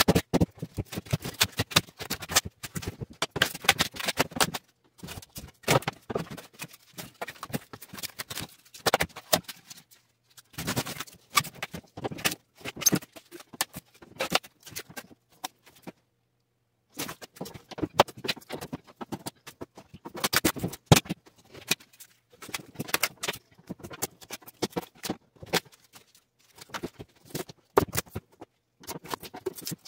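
Rigid foam insulation being broken and scraped by hand off the sheet-metal walls of a mini fridge cabinet: irregular crunching, crackling and scraping in spurts, with a pause of about two seconds in the middle.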